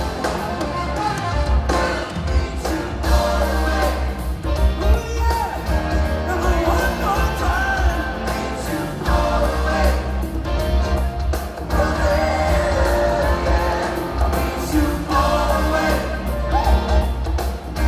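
Live rock band in full swing: a male lead singer over drums, electric guitar and keyboards, with heavy, boomy bass.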